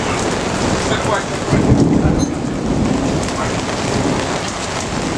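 Heavy rain pouring down during a thunderstorm, with a roll of thunder swelling and fading about a second and a half in.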